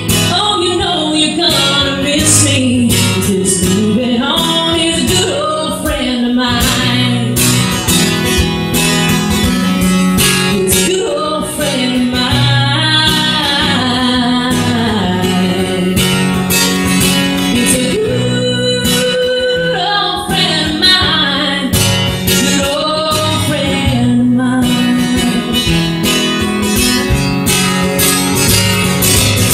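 A woman singing a country song while strumming her acoustic guitar, solo and amplified through the PA.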